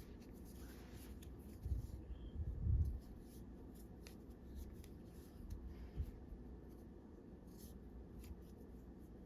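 Faint rustling and light clicks of a crochet hook working yarn through stitches, with a few soft low bumps about two seconds in.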